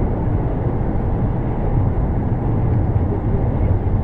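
Steady road and engine rumble of a car cruising at highway speed, heard from inside the cabin by the dashcam, with no sudden sounds.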